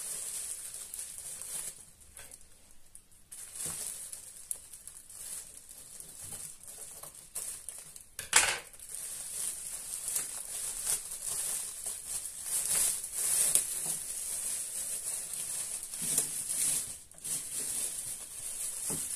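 Clear plastic wrapping crinkling and rustling as it is pulled and torn off an air fryer, coming and going unevenly, with one sharp loud crackle about eight seconds in.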